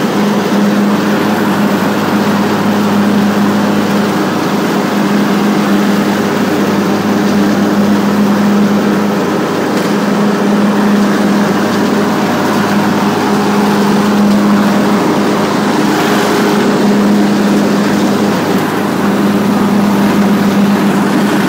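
Craftsman LT2000 riding lawn tractor engine running steadily while mowing, its 42-inch mower deck engaged; the engine note swells and eases slightly every few seconds.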